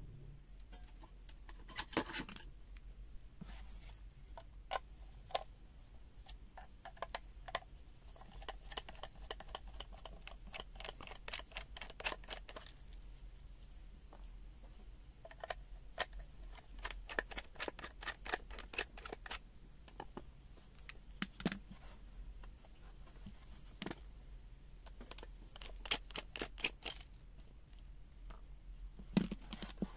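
Clicks, taps and scratching of hands opening the case of a UNI-T UT123D multimeter, with several runs of quick ticking about a third of the way in, around the middle and near the end.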